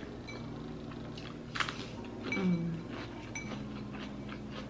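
Quiet eating at the table: wooden chopsticks tap and click against a ceramic bowl of noodles a few times, the sharpest click about one and a half seconds in. A short low sound falling in pitch comes about halfway, over a steady low hum.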